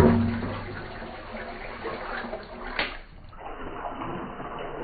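Water poured into a pot of soy-sauce braising liquid, splashing steadily, loudest as the pour begins. About three seconds in it gives way to a softer steady noise.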